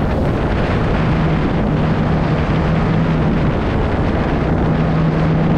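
Kawasaki Ultra 310LX jet ski's supercharged four-cylinder engine running steadily at cruising speed, about 45 to 50 km/h, over a rush of water. A steady low engine tone comes through from about a second and a half in.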